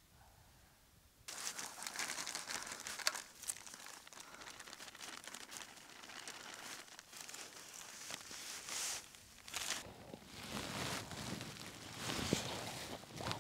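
Clear plastic food bag crinkling and crackling as a dried vegetable rice meal is shaken out of it into a small cooking pot. It starts suddenly about a second in, with many sharp crackles, and goes on in uneven bursts until it cuts off abruptly at the end.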